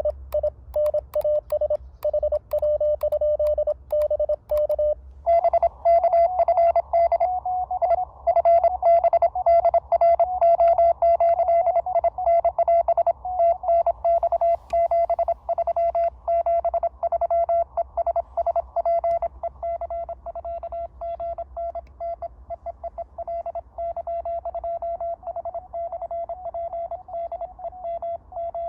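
Morse code (CW) tones from an Elecraft KX2 transceiver: one station's keyed tone for about five seconds, then a slightly higher-pitched station sending fast Morse, a little quieter from about two-thirds of the way through.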